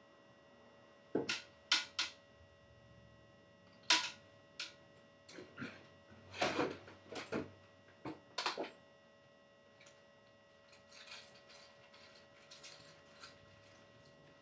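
Small hard objects and tools being handled at a workbench: a string of sharp clicks and knocks, irregular and a second or so apart, loudest about four seconds in, then faint rustling like a rag being worked.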